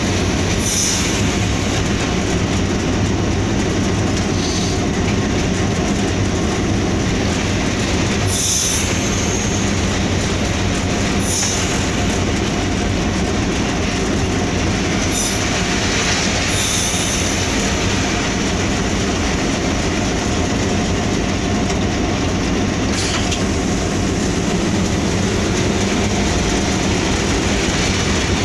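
Hitachi PHA-20 diesel-electric locomotive heard from inside its cab: the engine runs with a steady low hum as the train rolls along the track. Brief high-pitched squeals cut in several times, typical of wheel flanges squealing on the rail.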